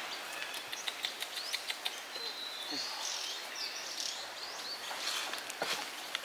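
Forest ambience: small birds chirping in short high calls over a steady background hiss, with scattered light clicks and rustles in the first half.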